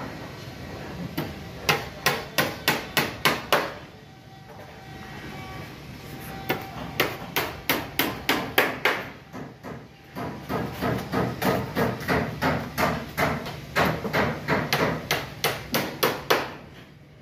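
Hammer blows struck in quick runs of about three a second, with short pauses between the runs.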